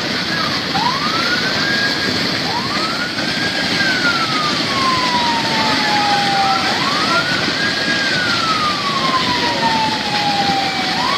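Floodwater rushing steadily under a wailing siren, whose pitch climbs quickly and then sinks slowly, about three times.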